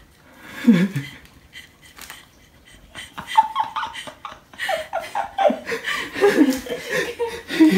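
A woman laughing, in a run of short choppy bursts that grows louder from about three seconds in.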